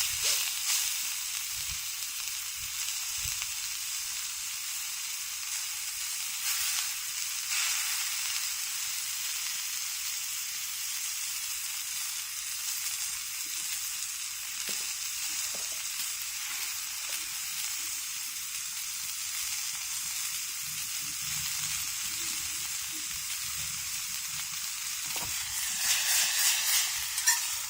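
Steak sizzling steadily as it fries in a pan, the sizzle swelling louder for a moment near the end.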